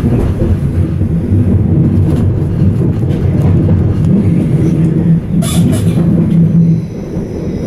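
Inside a Stadler Flirt electric multiple unit running at speed: a steady low rumble of the wheels and running gear. A low hum holds steady through the second half, and a brief hiss comes about five and a half seconds in.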